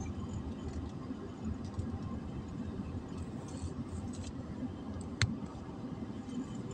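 Steady low rumble of a car heard from inside the cabin, the engine and road noise of the moving car. One sharp click sounds about five seconds in.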